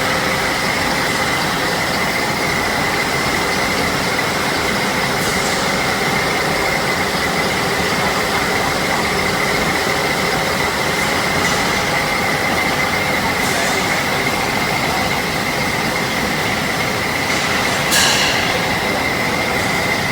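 Wire drawing machine running at speed, wire being pulled through its dies onto the capstans: a loud, steady mechanical rush with a high steady whine, and one sharp metallic click about eighteen seconds in.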